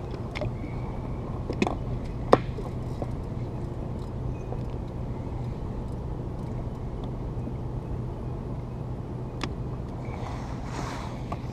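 A steady low engine hum, with a few sharp clicks and knocks over it, the loudest a little over two seconds in, and a rustle near the end.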